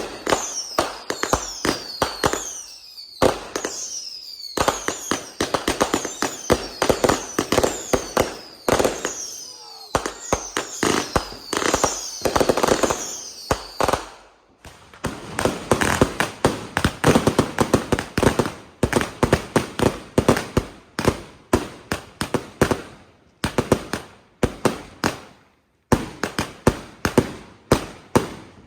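Fireworks going off in quick succession. For the first half, sharp shots come about once a second, each with a short whistle that falls in pitch. Then they give way to a dense barrage of rapid bangs and crackling.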